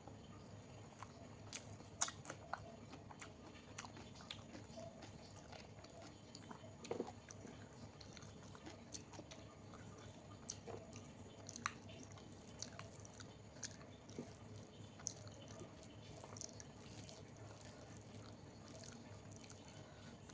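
Close-miked eating: faint chewing and wet mouth sounds with scattered small clicks and smacks, as someone eats a soft meal of dal, rice, fried potato and okra.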